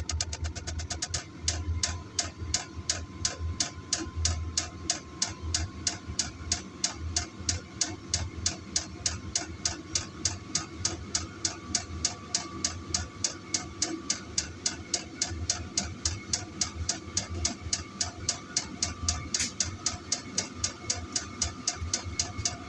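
Vevor diesel air heater running: its fuel dosing pump ticking steadily, about three ticks a second, over the low hum of the burner and a thin blower whine that rises slightly in pitch as the heater settles into running.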